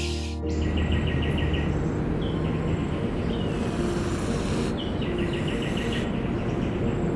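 Background music cuts off about half a second in. Outdoor wildlife ambience follows: a steady hiss with short, rapid, high chirping trills twice.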